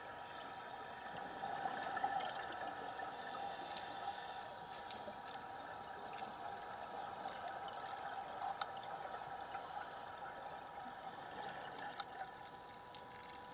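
Underwater sound muffled by a camera housing: scuba divers' exhaled regulator bubbles burbling, swelling for a few seconds about two seconds in. Scattered faint clicks and a thin steady hum sit underneath.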